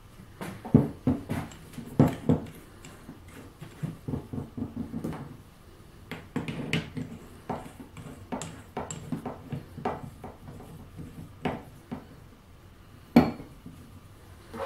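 Irregular metallic clicks and knocks of a hole saw and its arbor being handled and fitted into a drill's keyed chuck, the chuck sleeve turned by hand; the drill is not running. The sharpest knocks come about a second in, at two seconds, and near the end.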